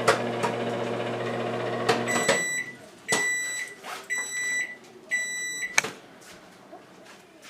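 Microwave oven running with a steady hum while popcorn kernels pop in a bag, in scattered sharp cracks. About two seconds in the hum stops and the microwave beeps four times, about once a second, with a sharp click at the end of the beeps.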